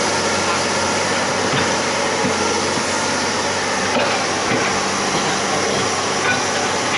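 Hydraulic excavator's diesel engine running steadily, with a few sharp knocks and clanks scattered through.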